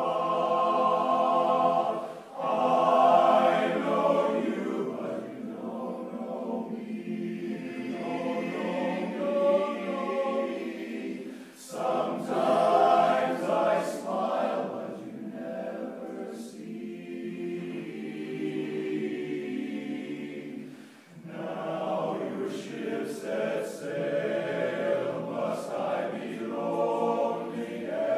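Men's barbershop chorus singing a cappella in close four-part harmony, in long sustained phrases with brief breaks between them.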